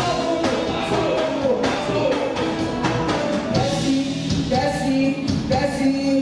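Live band music with a male vocalist singing into a microphone over a steady drum beat, with trombone and electric bass guitar in the band.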